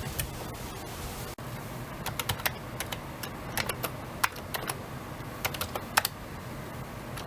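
Irregular light clicks and taps, like small plastic parts being handled on a workbench, over a steady low background hum.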